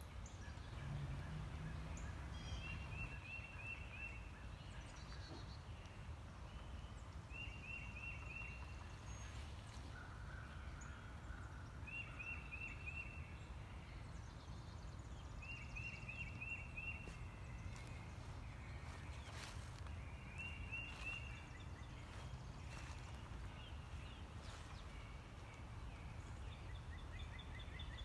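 A bird calling a short, rapid run of high notes, repeated about every four to five seconds, over a steady low background rumble.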